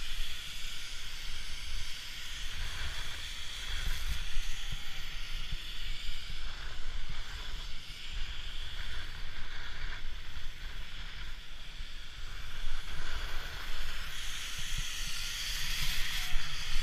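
Skis scraping and carving over packed snow, a continuous hiss that gets louder near the end, with wind rumbling on the microphone.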